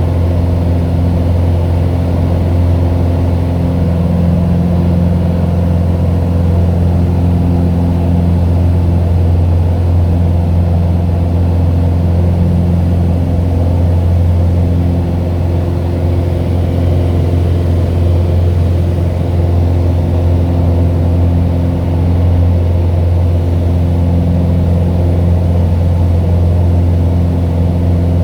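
Cessna 182's six-cylinder piston engine and propeller heard from inside the cabin as a loud, steady drone at climb power shortly after takeoff, with a deep hum and a few higher tones that waver slightly.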